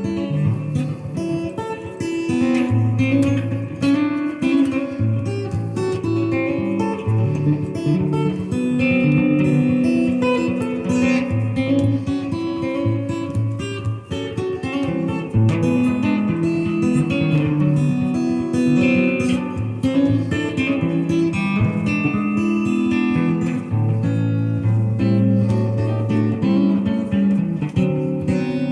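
Guitar played through a Multivox echo unit, a run of plucked notes and chords.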